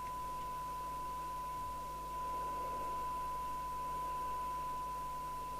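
Steady 1 kHz test tone with faint hiss, the audio of the Barracuda GT868 CB radio's receiver picking up a weak tone-modulated signal from a signal generator during SINAD alignment. The hiss gets slightly louder about two seconds in.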